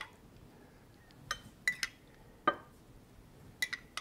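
Metal spoon and ceramic mug clinking: about half a dozen short, sharp clinks, some in quick pairs, as espresso is spooned and poured from the mug.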